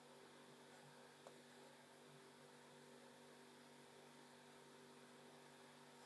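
Near silence with a faint steady electrical hum, and one faint click about a second in.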